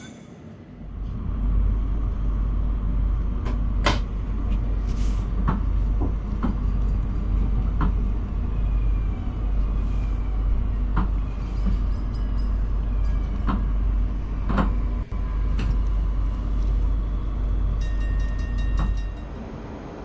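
A train passing close by: a steady low rumble with irregular sharp clacks of the wheels over rail joints, dropping away near the end.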